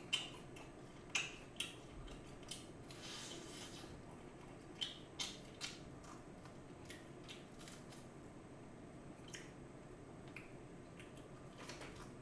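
Close-up biting and chewing of BHC Bburinkle fried chicken: sharp crisp crunches of the seasoned coating, about a dozen scattered through, most of them in the first half, over soft chewing.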